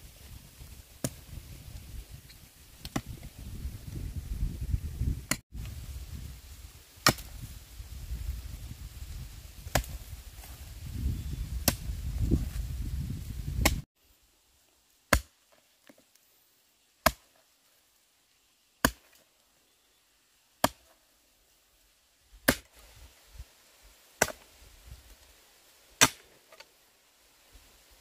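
A tool striking over and over in a steady rhythm, one short sharp stroke about every two seconds. A low rumbling noise under the first half cuts off abruptly about halfway through.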